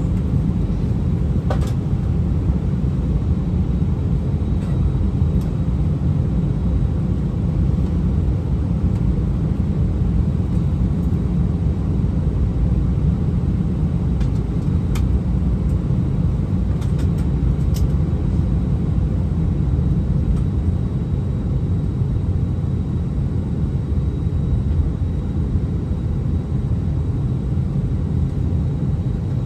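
Steady low rumble inside the cabin of an Airbus A319 airliner on the ground before takeoff, with a few faint light clicks.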